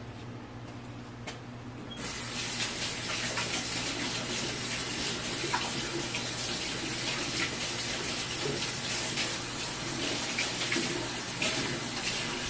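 Water running from a tap into a sink, turned on abruptly about two seconds in and then running steadily.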